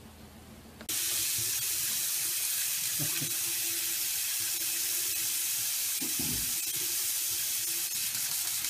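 Water running from a bathroom faucet into a sink, a steady rushing hiss that starts abruptly about a second in.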